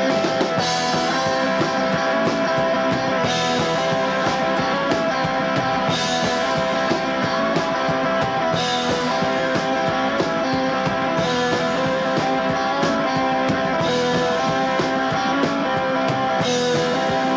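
Live new wave rock band playing an instrumental passage: electric guitars and drums, with a bright crash coming back about every two and a half seconds.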